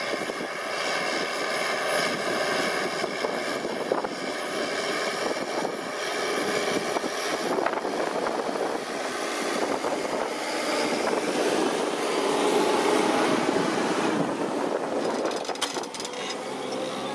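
Challenger MT765B tracked tractor's CAT C9 ACERT turbocharged six-cylinder diesel running steadily under ploughing load at about 1650–1700 rpm, with a steady high whine over the engine and the noise of the tracks and turning soil; it gets somewhat louder past the middle.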